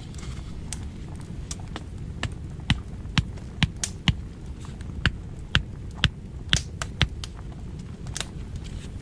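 Hatchet knocking thin wooden stakes down into the soil: a run of about a dozen sharp knocks, roughly two a second, over a steady low rumble.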